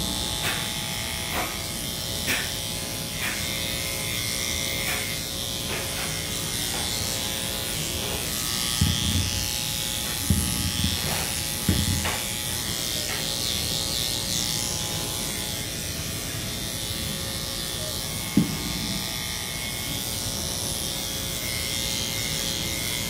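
Electric pet grooming clippers running steadily as a Lhasa Apso's coat is clipped. A few short low bumps come around the middle, and a single sharp knock later on.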